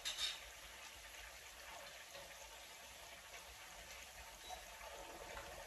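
Faint steady sizzling hiss of food cooking on an induction hob, with a couple of light clicks at the very start.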